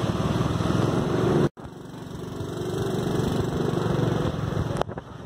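Motorcycle engine running while riding, a fast steady pulsing. It cuts out abruptly for an instant about a second and a half in, then grows steadily louder again.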